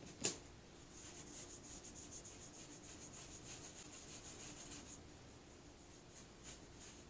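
A cloth soaked from an acetone pump bottle rubbing quickly back and forth over a coated tumbler, several short scratchy strokes a second, which die away after about five seconds into a few single wipes. A sharp click comes just after the start, as the cloth is pressed onto the pump dispenser.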